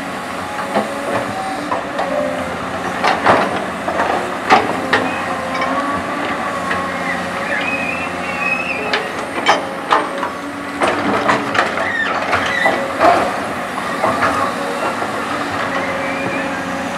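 Caterpillar 320 hydraulic excavator's diesel engine running steadily under digging load, with a series of sharp clanks and knocks from the bucket and boom as it scoops wet soil from the trench, mostly in two clusters in the first and second thirds.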